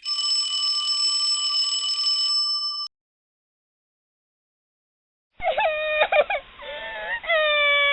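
Sound effect of a telephone ringing for about three seconds. After a pause, a small child starts crying with wavering wails.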